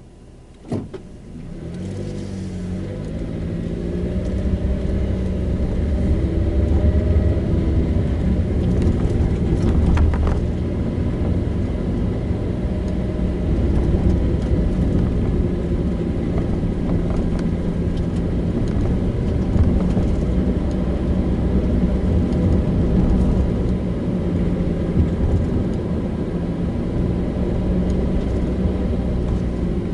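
Car driving on a road: a click just under a second in, then the engine picks up speed with its pitch rising over the first several seconds, settling into a steady low engine and road rumble while cruising.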